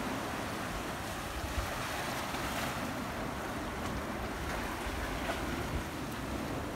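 Small sea waves washing steadily among shoreline boulders, with wind buffeting the microphone.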